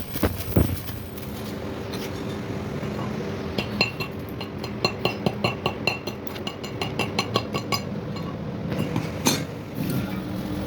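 Light metal-on-metal clicking and clinking, several quick strikes a second, over a steady machine hum, with one sharper knock near the end.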